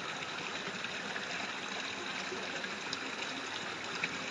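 Steady, even rushing noise like running water, with a faint tick near the end.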